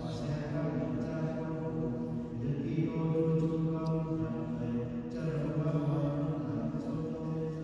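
Liturgical chant: a prayer chanted on a nearly steady pitch, in phrases a few seconds long with short breaks between them.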